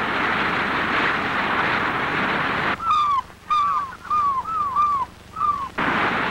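A steady rushing noise that breaks off partway through for seagull cries: about six short calls, each falling in pitch. The rushing comes back near the end.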